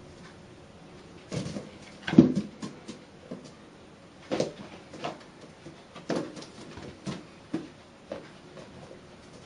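Inflated rubber balloon batted and pushed by a kitten's paws, giving about ten irregular dull thumps and rubs, the loudest about two seconds in.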